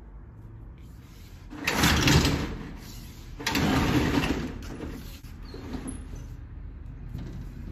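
A window roller shutter being raised by its pull strap in two pulls, each a loud rattle of the slats lasting under a second, followed by a lower steady background noise.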